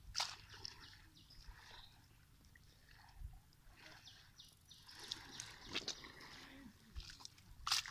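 Faint, scattered wet squelches and clicks of soft mud, as bare feet shift on a muddy pond edge.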